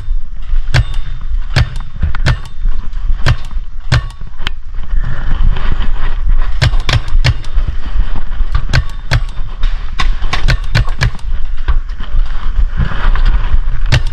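Paintball markers firing in quick, irregular pops, several a second, kept up throughout.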